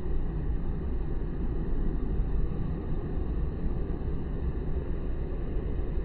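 Steady low rumble of outdoor background noise, with no bird calls or other distinct events.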